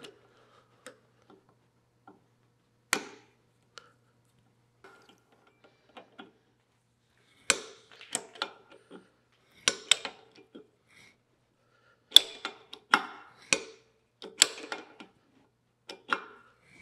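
Hand tap wrench turning a tap to cut threads in a blind tap-drilled hole: scattered metallic clicks and ticks as the tap bites and the wrench is worked, few at first and more frequent in the second half.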